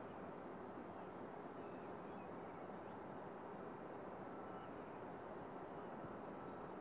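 Faint evening outdoor ambience: crickets chirping in a high, regular pulse over a steady low background noise. A rapid high trill runs for about two seconds in the middle.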